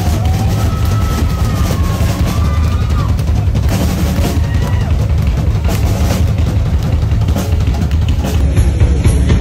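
Loud rock music with a drum kit and a heavy, steady bass.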